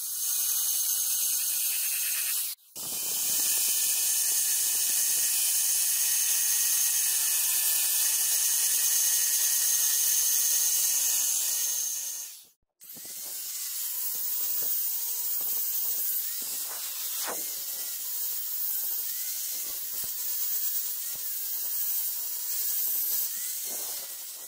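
Handheld high-speed rotary tool with a small grinding bit running along the groove of a steel cleaver blade: a steady high whine with grinding hiss. The sound cuts off abruptly twice, and in the second half the running note wavers up and down.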